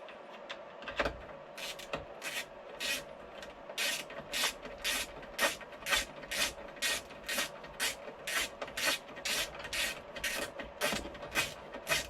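Hand tool working bolts into a metal gearbox housing: short rasping strokes, a few scattered at first, then a regular rhythm of about two a second.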